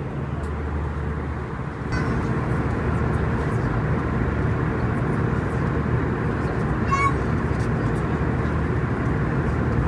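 Airbus A320 cabin noise: a steady drone of engines and airflow, which gets louder about two seconds in. A short high tone sounds once about seven seconds in.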